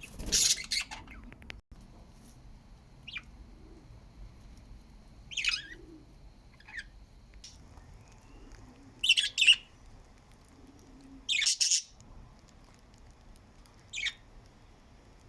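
Pet budgerigars giving short, high chirps and squawks one at a time, with quiet gaps of one to three seconds between them. The loudest calls come about nine and eleven seconds in.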